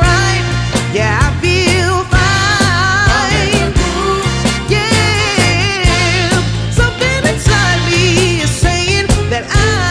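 Background song with a sung vocal line over bass and a steady beat.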